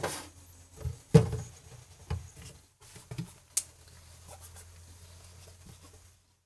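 Glassware knocked and set down on a stainless steel counter: a shot glass put down right at the start, then a glass bottle lifted away, giving several sharp clinks and knocks in the first four seconds with light handling noise between. A low steady hum runs underneath.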